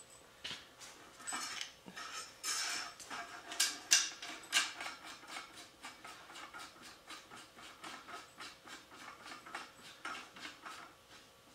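A dog panting in quick, even breaths, about four a second, with a few sharper knocks in the first half.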